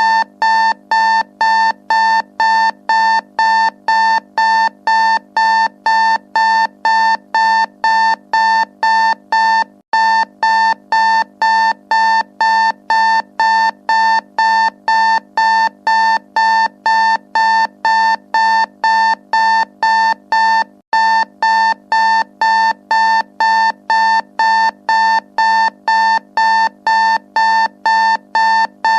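Electronic timer alarm beeping steadily, about two pitched beeps a second, signalling that the countdown has finished. The beeping cuts out for an instant twice, where the tone loop restarts.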